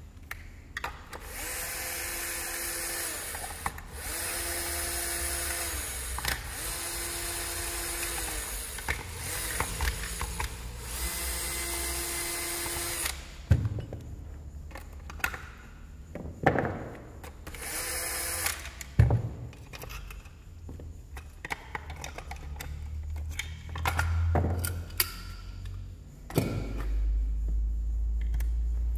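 Electric drill-driver backing out the screws that hold a STIHL FS 220 brushcutter's muffler, with a steady motor whine in four runs over the first dozen seconds and one short run a few seconds later. Scattered clicks and knocks of metal parts being handled follow.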